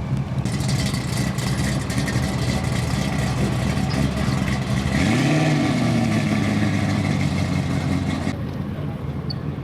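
Car engine running close by, revved once with a rise and fall in pitch about halfway through; the louder noise eases off near the end.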